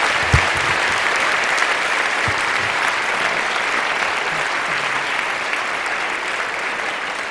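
Audience applauding steadily, easing off slightly before cutting off suddenly at the end, with one low thump about half a second in.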